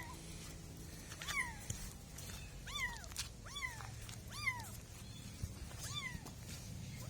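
A kitten mewing repeatedly: about six short, high-pitched mews, each rising and then falling in pitch.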